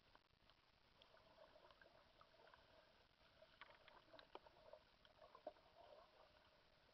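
Near silence underwater: faint scattered clicks and crackles, more of them in the second half.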